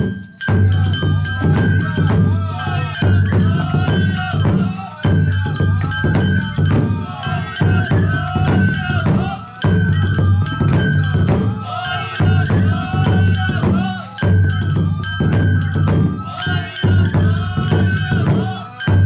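Japanese lion-dance festival music: repeated drum beats under a held high note, the accompaniment to the shishimai dance.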